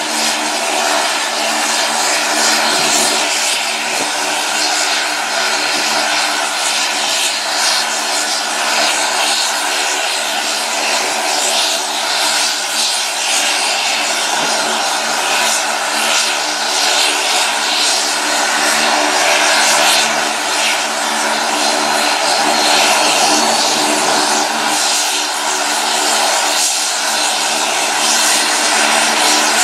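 The twin Garrett TPE331 turboprop engines of a BAe Jetstream 32 running steadily at low taxi power, giving an even propeller drone with a hissing whine above it.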